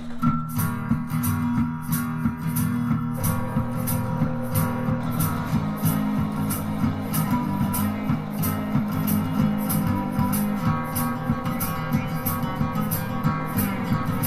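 Background music: a guitar-led track with a steady beat of about two beats a second.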